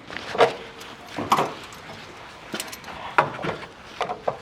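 Hand tool scraping and knocking on rusted car body metal, about six short, irregular strokes, some with a brief metallic ring.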